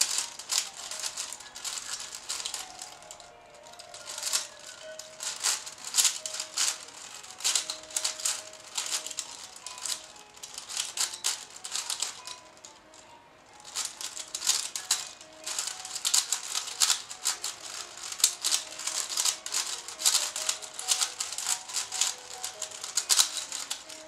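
Plastic 5x5 puzzle cube being turned fast by hand: rapid clicking and rattling of its layers in quick runs of turns, with short pauses a few seconds in and again about halfway through.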